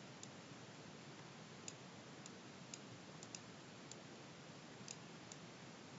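Scattered single computer mouse clicks, about nine in six seconds at irregular intervals, over a faint steady hiss of room tone.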